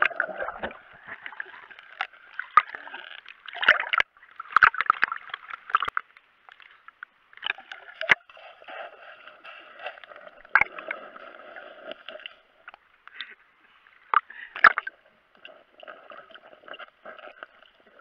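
Muffled underwater sound of water churning and bubbling around a submerged camera as a Labrador retriever swims and dives beside it, with sharp clicks and knocks scattered through.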